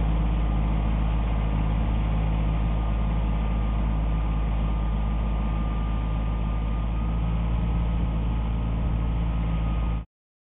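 Tractor engine running steadily while pulling a tiller through a field: a low, even engine hum with a thin steady whine above it. The sound cuts off suddenly near the end.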